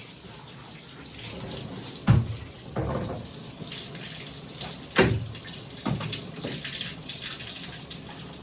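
Water running from a tap into a bathtub during a dog's bath, with four louder sudden sounds, the loudest about two and five seconds in.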